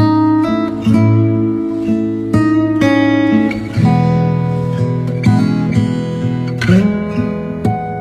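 Background music played on acoustic guitar, a run of changing notes and chords.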